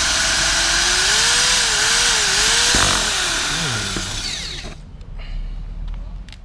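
Power drill running at uneven speed, its motor pitch wavering up and down as it drills into a car's front lip; it is let off about three seconds in and winds down.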